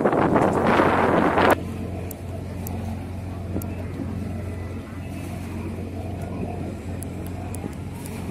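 Wind buffeting the microphone for about the first second and a half, cut off abruptly. Under and after it, a tour boat's engine drones with a steady low hum.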